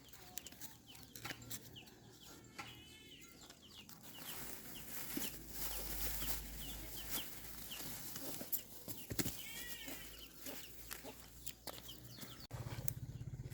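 Farmyard chickens calling: two short, arching squawks a few seconds apart over scattered clicks and rustling.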